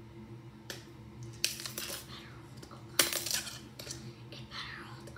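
Small metal items clinking and clattering against a marble countertop in a few sharp knocks, the loudest about three seconds in.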